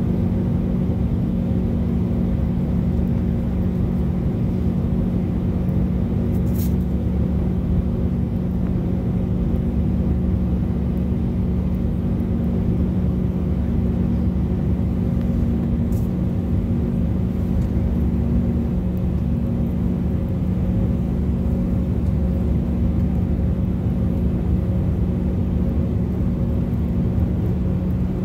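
Airbus A319 jet engines heard inside the cabin in flight: a steady, loud drone made of a low rumble and a constant hum.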